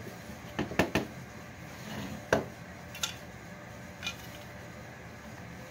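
Wooden furniture parts knocking and clacking as a bench leg and dowel-jointed frame are fitted together and handled on a wooden workbench: three quick knocks in the first second, then single knocks about a second apart.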